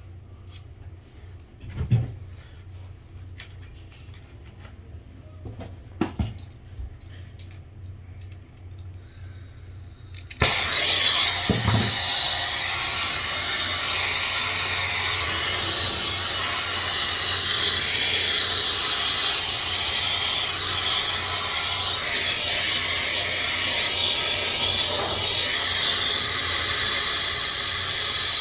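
A few faint clicks and handling knocks, then about ten seconds in a handheld gas torch lights and burns with a steady loud hiss and a thin high whistle, heating copper pipe and an angle stop for soldering.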